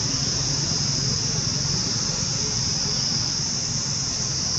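Steady high-pitched drone of insects, running on unbroken over a low steady hum.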